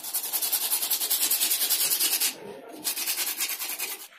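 Hacksaw sawing through plastic water pipe in quick, even back-and-forth strokes, about six or seven a second. The sawing breaks off briefly a little past two seconds in, then starts again and stops just before the end.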